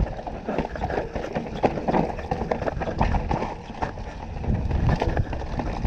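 2018 Canyon Torque CF9 Pro full-suspension mountain bike descending a rough trail. Its tyres rumble over dirt and rock while the bike rattles and knocks in a dense, irregular clatter.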